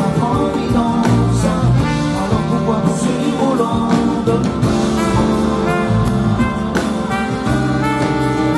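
A live band playing while a male singer sings into a microphone.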